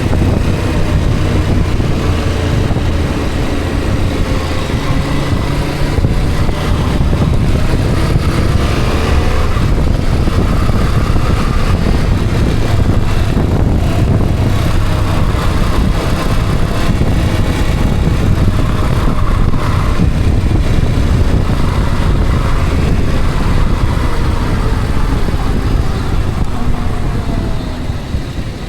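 Motor vehicle on the road: steady engine and road noise, with the engine pitch rising and falling a few times and dropping away near the end.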